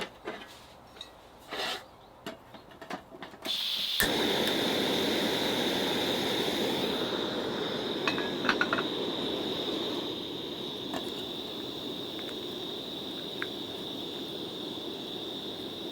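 A few light clinks of utensils and dishes, then about three and a half seconds in tteokgalbi (Korean beef patties) go onto the hot surface and begin sizzling steadily. The sizzle drops a little in level about ten seconds in.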